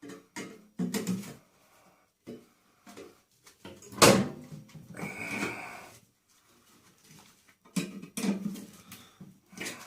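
Knocks and clatter of metal parts being handled while a microwave is stripped for scrap. The loudest is one sharp clank about four seconds in, then a second of scraping clatter.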